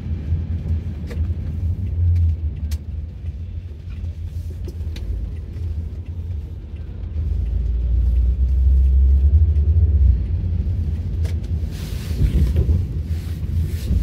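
Car cabin rumble on a rain-wet road: a steady low drone from the engine and tyres that grows louder from about eight to ten seconds in, with a brief hiss about twelve seconds in and a few faint ticks.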